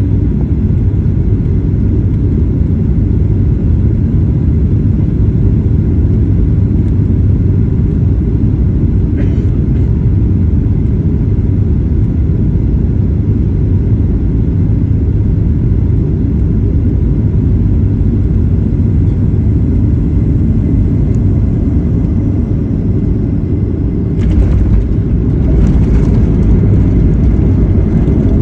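Boeing 737-9 airliner's steady low rumble during landing, growing louder and fuller about 24 seconds in.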